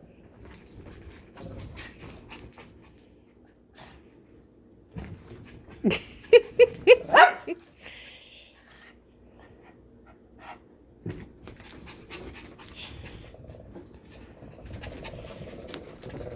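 A puppy at play gives a quick run of high, rising yips and whines about six seconds in. Scuffling, clicking and light rattling come and go around them.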